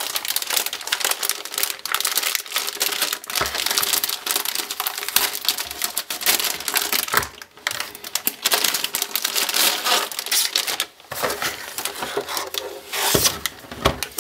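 Metallic anti-static bag crinkling and rustling as a motherboard is handled and slid out of it, a dense run of crackles, with a few dull knocks, the strongest near the end.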